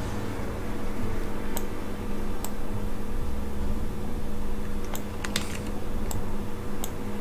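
Scattered computer keyboard and mouse clicks, single clicks a second or so apart with a quick cluster about five seconds in, over a steady low hum.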